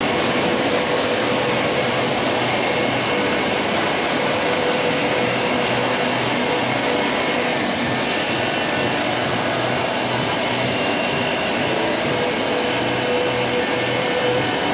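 Steady whirring, hissing machine noise of glass-processing machinery running, with a faint steady whine and a low pulsing hum under it.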